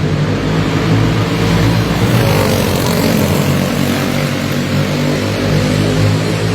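Several clone-class racing kart engines, single-cylinder four-strokes, running together around the track, their engine notes overlapping at steady speed.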